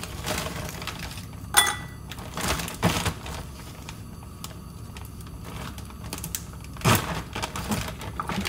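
Clear plastic zip-top freezer bag crinkling as it is handled, with a few short clicks and clinks from frozen rice cake pieces going into a ceramic bowl: a cluster about one and a half seconds in, another near three seconds, and more about seven seconds in.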